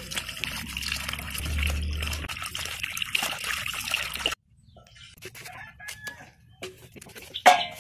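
Tap water running and splashing into a steel bowl as vegetables are rubbed clean by hand, cutting off abruptly about halfway through. Then faint clicks of a knife cutting brinjal, with one sharp knock near the end.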